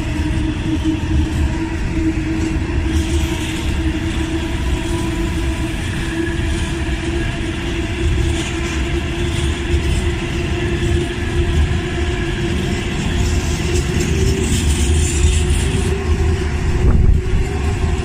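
Freight train of tank wagons rolling steadily past at close range: a continuous rumble of wheels on the rails, with a steady tone running through it.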